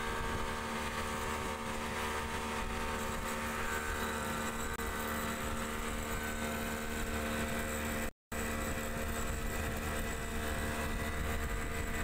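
Yamaha outboard motor driving a speedboat at speed: a steady engine drone under the rush of water spray and wind. The sound cuts out for a moment about eight seconds in.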